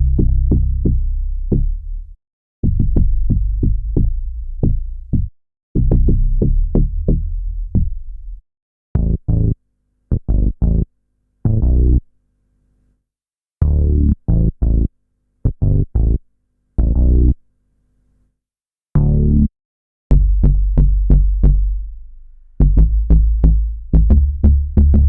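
Bass sample loops: rhythmic phrases of short, sharply attacked low bass notes, with brief silences between phrases.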